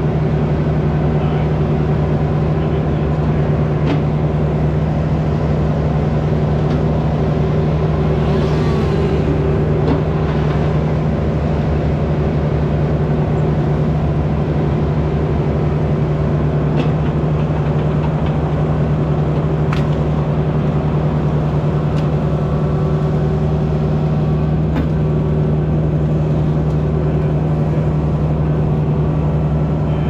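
Engine of heavy equipment running at a steady, unchanging speed, with a few faint clicks and knocks over the drone.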